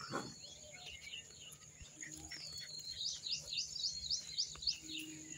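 Birds chirping faintly: a quick run of about six short rising chirps near the middle, over a steady high-pitched hum. A short falling sound comes right at the start.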